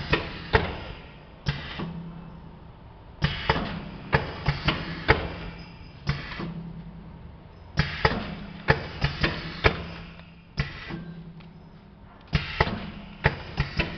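Suture over-wrap packing machine running through its cycle: a cluster of sharp mechanical clacks about every four and a half seconds, over a steady low hum.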